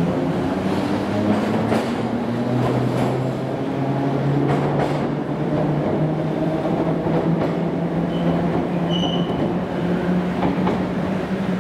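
Class 483 electric train (ex-London Underground 1938 tube stock) pulling away: a steady low motor hum whose pitch shifts slowly, with a few clacks of wheels over rail joints and a brief high squeal about nine seconds in.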